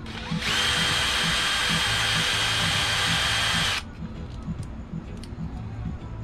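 A small electric power tool running steadily at speed for about three seconds: a whirring hiss with a thin high whine, starting about half a second in and cutting off suddenly. Background music with a steady beat runs underneath.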